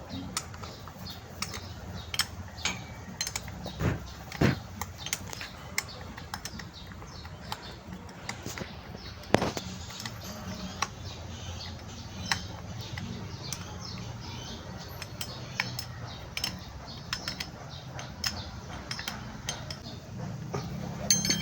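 Metal tools and steering-rack parts clinking and knocking during hand work: irregular small clicks and taps throughout, with a few louder knocks about four and nine seconds in.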